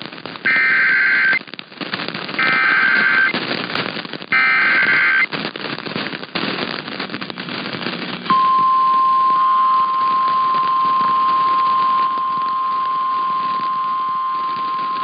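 Emergency Alert System SAME header: three bursts of warbling digital data, each about a second long and two seconds apart, over crackling radio static. About eight seconds in comes the steady single-pitch 1050 Hz NOAA Weather Radio warning alarm tone, which signals that a warning, here a flash flood warning, is about to be read.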